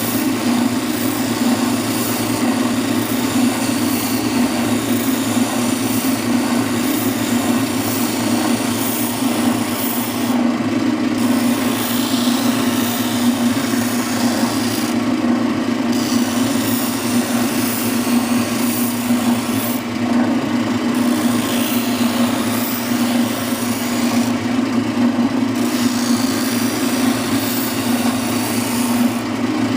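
Oscillating spindle sander running with a steady motor hum while wood is sanded against the spindle, a gritty rubbing over the hum. The higher hiss drops out briefly every four to five seconds.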